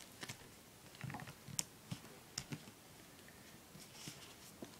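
Duct tape being handled and pressed down onto a cutting mat by hand: a few faint, irregular taps and crinkly clicks.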